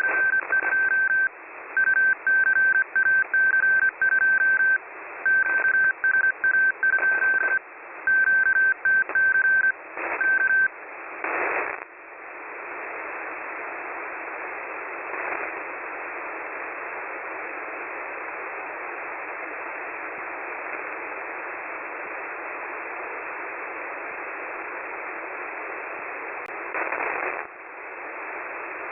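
Morse code received on 4617.99 kHz shortwave, heard through a radio receiver as a steady beep keyed on and off in dots and dashes over static. After about ten seconds the keying stops, and only the receiver's band-limited hiss remains, with a brief louder burst of noise shortly after and another near the end.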